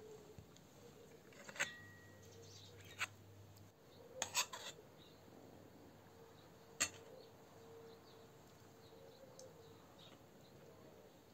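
Cutlery clinking against metal plates and bowls during eating: a few scattered sharp clinks, with a quick cluster around the middle, over faint room tone.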